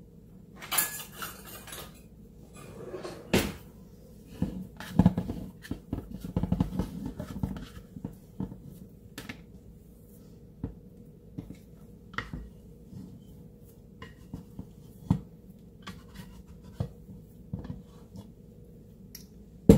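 Plastic and metal utensils clattering in a kitchen drawer being rummaged through, then knocks and scrapes as risen sourdough is worked out of a ceramic mixing bowl. The clatter is busiest in the first several seconds, with sparser clicks after that.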